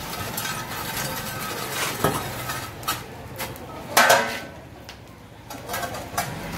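Iron rod clanking and scraping against large metal biryani pots and lids on a charcoal fire, a few separate clanks with one louder ringing clank about four seconds in.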